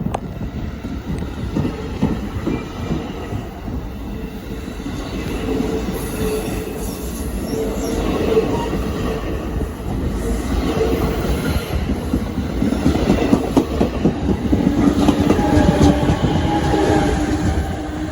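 NJ Transit commuter train pulling out and rolling past, cars rumbling and wheels clicking over the rail joints, with a steady whine in the middle and a louder stretch of several held tones near the end as the trailing locomotive comes by.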